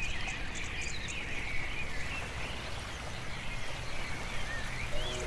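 Outdoor nature ambience: many short, warbling bird chirps over a steady hiss, with faint high clicking calls.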